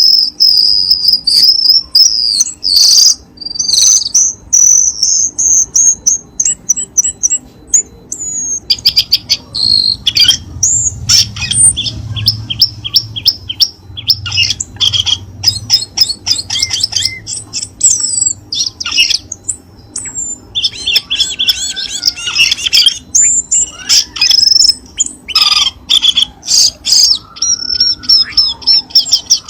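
Cucak keling birdsong: a dense run of rapid, high-pitched chirps and trills, with some lower sliding whistles near the end.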